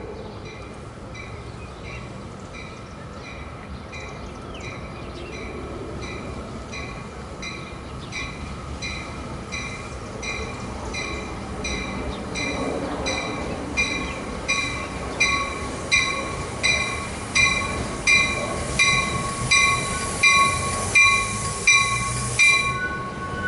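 A train passing, with a warning bell ringing steadily about once every 0.7 seconds and growing louder as it nears. A steady high wheel squeal rises alongside it, and all of it cuts off suddenly near the end.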